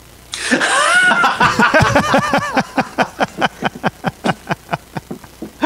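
Men laughing hard: a high-pitched burst of laughter about half a second in, then a long run of rhythmic laughing pulses, several a second, that taper off near the end.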